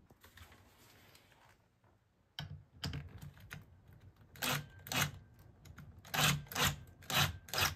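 Handling noise: a run of irregular light clicks and taps, starting a couple of seconds in.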